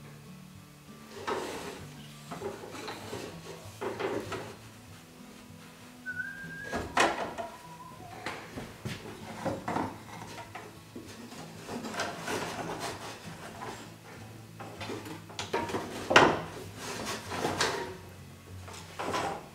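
Wooden stringers being threaded through the slots of plywood boat frames: irregular knocks, clatters and wood rubbing on wood as the frames are handled and loaded onto the stringers, with one brief squeak a little after six seconds in and the sharpest knock about sixteen seconds in.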